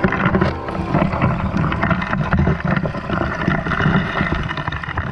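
Water sloshing with chunks of broken ice knocking and scraping around a diver moving through it at the surface, heard from right at the waterline.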